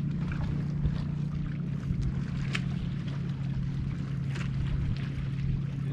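Steady low hum of a motor on a fishing boat, with a few faint clicks over it.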